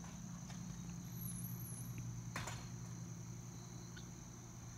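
Insects trilling steadily in one high, even band over a low steady hum, with a faint click about two and a half seconds in.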